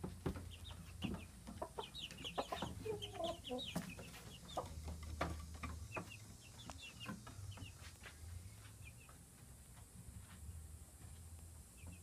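Chickens clucking, with a run of low clucks about three seconds in, among many short high calls and scattered sharp taps.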